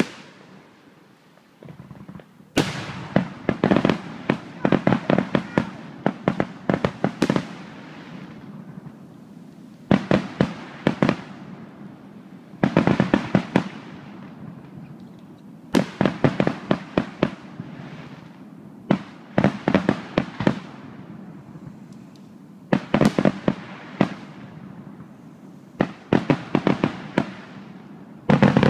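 Aerial fireworks bursting overhead in about seven volleys a few seconds apart, each a rapid string of sharp bangs and cracks. The first volley, a couple of seconds in, is the longest.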